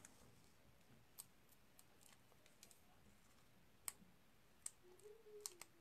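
Near silence with a few faint, scattered clicks and taps of paper and cardstock being handled and pressed onto a card.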